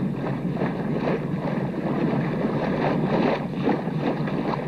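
Steady rushing of wind and sea water under a sailing yacht.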